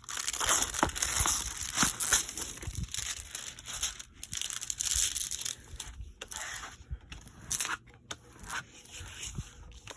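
Plastic packaging of a diamond painting kit crinkling and rustling as it is handled, with many small crackles, loudest in the first half and coming in scattered bursts toward the end.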